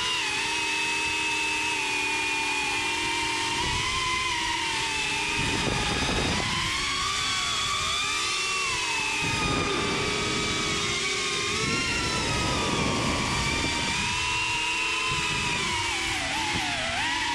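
Small quadcopter drone's electric motors and propellers whining, several pitches rising and falling together as the throttle changes, with brief dips in power a few times.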